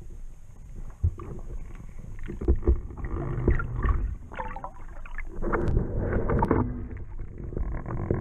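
Muffled knocking, bumping and rumbling heard through water by a submerged camera, irregular and busiest in the second half, with a short wavering creak about four and a half seconds in.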